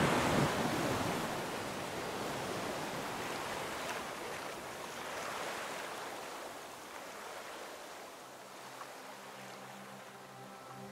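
Surf washing up and draining back over a pebbly beach, with wind buffeting the microphone at the start and easing off. Soft music fades in near the end.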